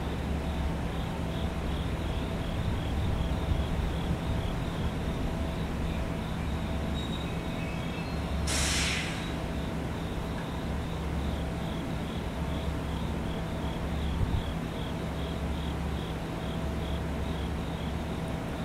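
Choshi Electric Railway train standing with a low, steady hum from its running equipment. About halfway through comes a short, sharp hiss of air from the brakes.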